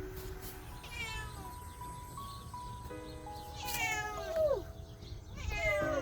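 Domestic cat meowing several times: a short meow about a second in, a longer meow that falls in pitch around four seconds in, and another near the end, over soft background music.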